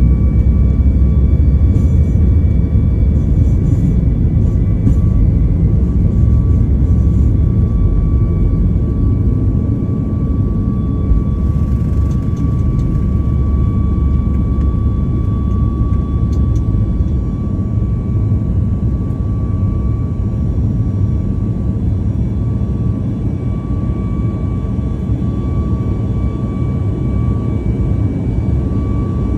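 Airplane engines running at takeoff power: a heavy, steady low rumble with a constant high whine over it, easing slightly about ten seconds in.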